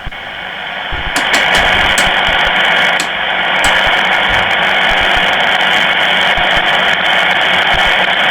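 Shortwave communications receiver giving out steady static hiss with a few brief crackles, with no station audible. The hiss swells up over the first second and then holds.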